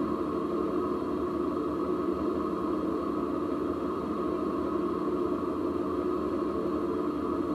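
Steady road and wind noise from a moving Jeep, picked up by a camera mounted low at the front axle, with a constant rush and no distinct knocks or changes.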